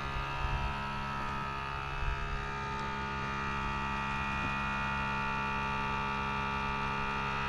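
Air Lift Wireless One onboard air compressor running with a steady electric hum, filling the truck's air bags toward 60 psi.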